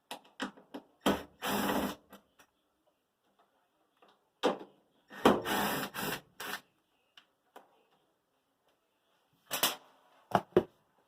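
Cordless drill-driver run in short bursts to back out a screw from a washing machine's cabinet, between sharp clicks and knocks of parts being handled.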